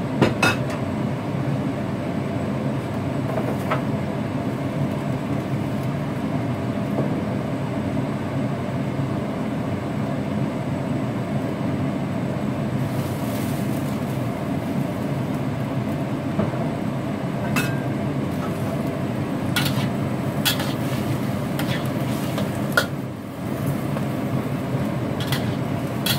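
Steady low rumble of the stove burner under a covered wok of squid and napa cabbage cooking, with a few sharp metal clicks. Near the end the stainless steel lid is lifted off with a clank.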